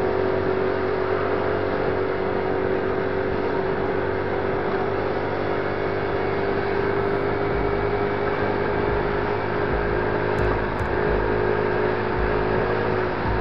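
Alpha Motors Mustang F1 50cc scooter engine running at a steady cruising speed, its pitch holding level, over a constant rush of riding noise.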